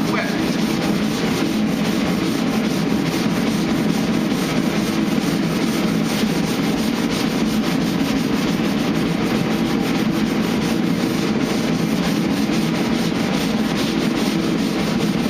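Flat hand sanding block with 120-grit paper rubbed back and forth over a truck's body panel: steady, continuous scratchy sanding.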